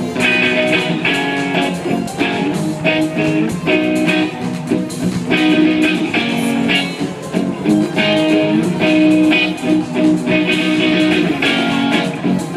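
Guitar playing repeated chords through a stage PA during a live soundcheck.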